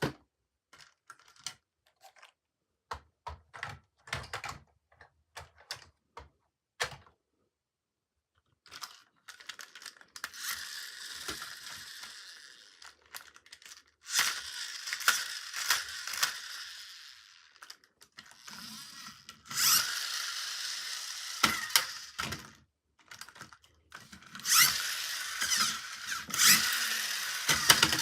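Toy packaging being handled and opened: a run of small clicks and taps, then several longer stretches of crinkling and rustling.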